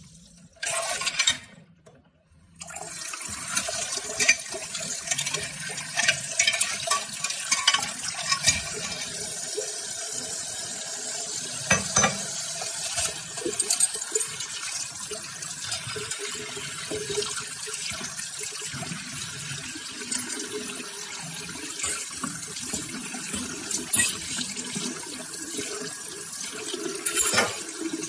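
Tap water running into a sink over a stainless wire basket of small steel rifle trigger parts, rinsing them after ultrasonic cleaning. There are scattered sharp metallic clinks as the basket and parts are shifted under the stream, and the water drops out briefly in the first couple of seconds.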